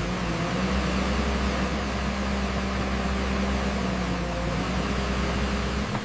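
JCB 3CX backhoe loader's diesel engine running steadily, a constant low drone.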